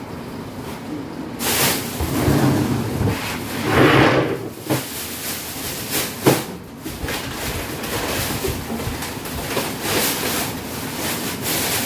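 Plastic bags of food packets being handled and rustled, with a few sharp knocks, the clearest about six seconds in.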